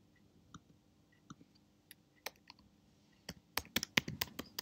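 Keystrokes on a computer keyboard: a few scattered clicks, then a quick run of typing over the last second and a half.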